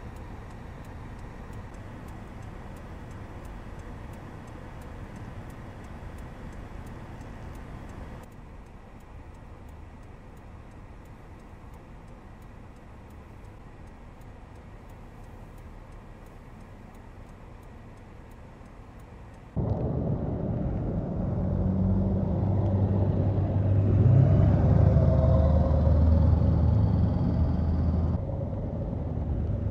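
Steady outdoor rumble of traffic on a snow-covered street. About two-thirds of the way in it gives way to a much louder steady engine hum from a gas snowblower running close by, with cars driving past on the snowy road.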